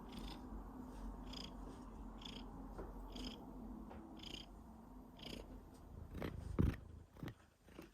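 Domestic cat purring steadily, with a faint hiss about once a second. About six seconds in the purring stops and a few short, sudden sounds follow, the loudest about halfway between six and seven seconds.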